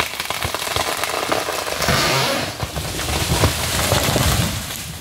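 Stihl MS 070 two-stroke chainsaw running unevenly, mixed with irregular cracks and snaps of wood. The noise swells about two seconds in and again toward the fourth second, then dies down near the end.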